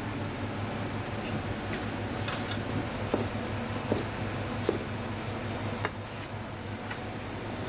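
Kitchen knife cutting a tomato into wedges on a white plastic cutting board: a few sharp knocks of the blade meeting the board, three of them evenly spaced about a second apart around the middle, over a steady low hum.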